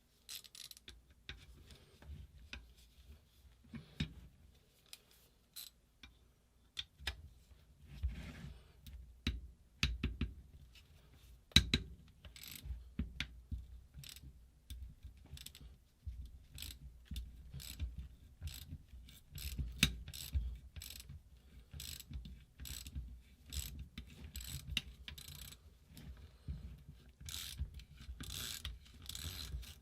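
A 3/8-inch ratchet on a modified socket clicking in irregular runs as it is worked against a Loctite-seized fastener, with a few louder sharp knocks among the clicks.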